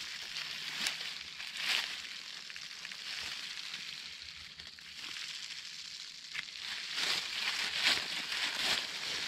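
Irregular rustling and crunching of dry leaf litter and undergrowth as someone moves and picks through it, over a steady hiss, with the crunches busiest near the end.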